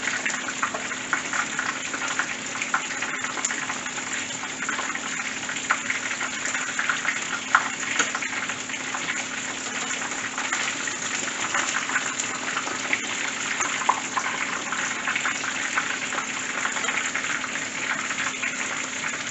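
Batter-coated porgy deep-frying in a pan of hot oil: a steady sizzle full of small crackles, with a few louder pops.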